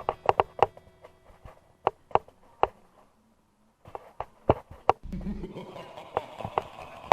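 Background music: a run of sharp, ringing drum strikes that thin out, a brief total silence about three seconds in, then a few more strikes before a fuller music passage starts about five seconds in.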